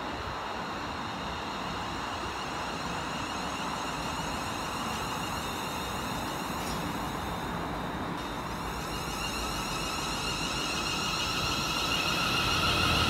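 Electric multiple-unit train with a steady electrical whine over a rumble, getting louder over the last few seconds as it draws nearer.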